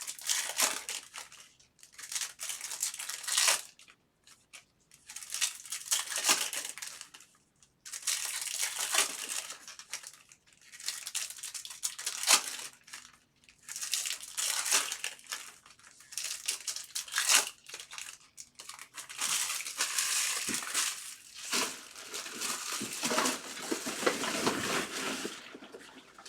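Trading-card pack wrappers being crinkled and torn open by hand, in repeated bursts of rustling every couple of seconds with short pauses between.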